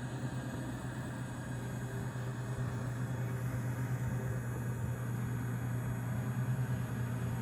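Battery-powered electric air pump running steadily, a continuous motor hum with air hiss as it inflates the air beams of an inflatable tent. The pump is almost dead and not pushing out enough power to make the beams tight.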